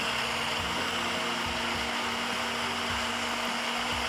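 An electric countertop blender is running steadily, puréeing a watery green chilli and coriander chutney. Its motor gives an even hum with a constant pitch.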